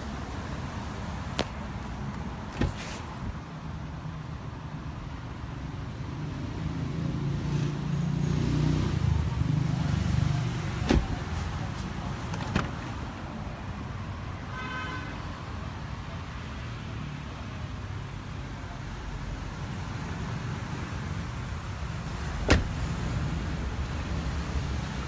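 Low rumble of vehicles, swelling for a few seconds in the first half, with a handful of sharp clicks and a short high beep about fifteen seconds in.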